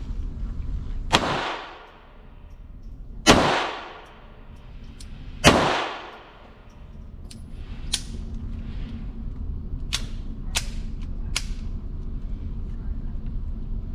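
Ruger Mark IV 22/45 Lite .22LR pistol fired three times, about two seconds apart, followed by four fainter sharp cracks.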